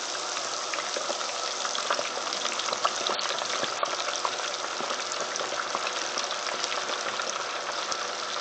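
Deep fryer oil at 350 degrees bubbling and crackling steadily around a whole Cornish hen that has just been dropped in.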